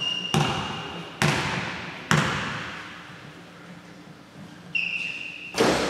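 A basketball bounced on the gym floor three times, about a second apart, each bounce echoing through the large hall, then a louder thud near the end. Two brief high squeaks sound at the start and shortly before the end.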